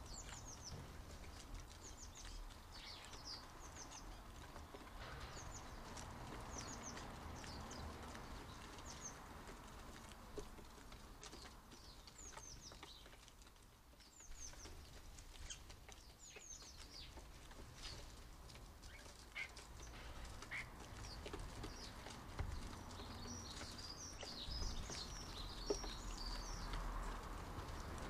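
European starlings at a wooden bird table giving short, high chirps and whistles, scattered and thickest near the end, with a few sharp taps among them.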